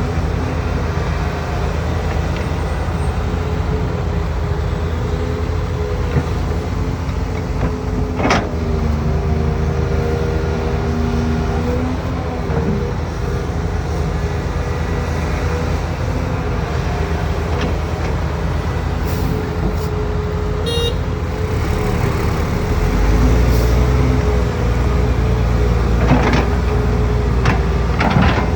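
Volvo EC480 excavator's diesel engine running steadily under load with a steady whine that shifts slightly in pitch. A few sharp knocks come through, and the low rumble grows louder in the last few seconds.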